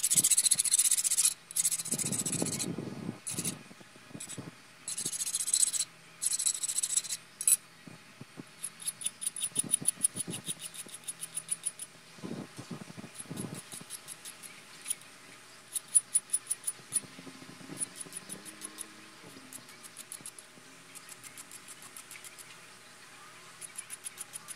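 A hand file rasping along the edges of a Chevy 3.1 L engine's main bearing cap. It starts with several long, loud strokes and then goes on in quicker, lighter strokes. The filing deburrs and rounds the edges so the bearing shell will not be shaved when it is slid into place.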